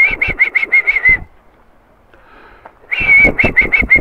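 A person whistling a rapid string of short high notes, about seven a second, in two bursts: a whistle call to bring a cat.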